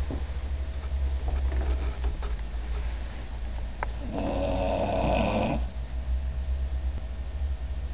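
An old beagle snoring in its sleep: one long snore about halfway through, with a fainter one earlier, over a steady low hum.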